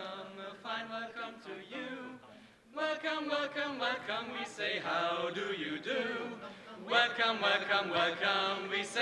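A group of voices singing a song together in chorus, with a short break about two and a half seconds in.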